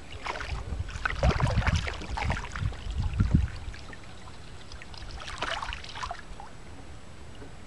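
Knocks and bumps on a kayak hull during the first few seconds, then a brief splash of water a little past the middle.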